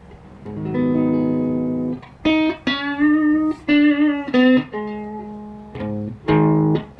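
Electric guitar, a Telecaster with microcoil pickups, played through a Richter 5E3 tube amp with 6K6 power tubes and heard from the amp's speaker. It starts with a held chord about half a second in, moves to single notes with wavering vibrato, lets one note ring and fade, and strikes new chords near the end.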